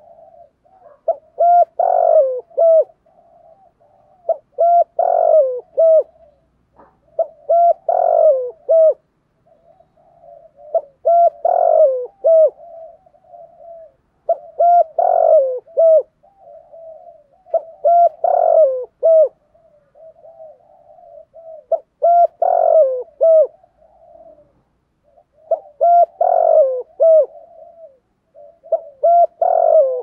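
Spotted dove cooing: a repeated call phrase about every three and a half seconds, nine times over. Each phrase is a soft wavering trill leading into a cluster of loud, low coos whose notes drop in pitch at the end.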